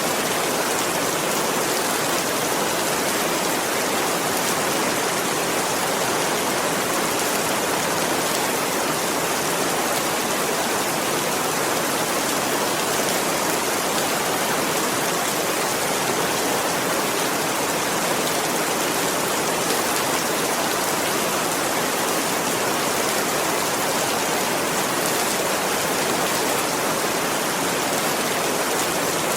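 Steady rain falling: an even, unbroken hiss with no distinct drips or gusts.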